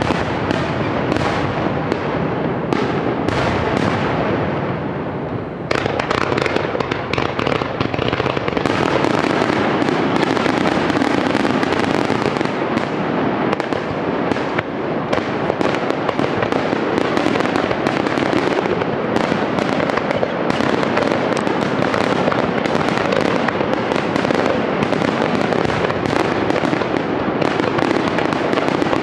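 Fireworks display with aerial shells bursting in a dense, continuous barrage, the reports overlapping one another. The bursts ease briefly about five seconds in, then resume in an even denser, unbroken run.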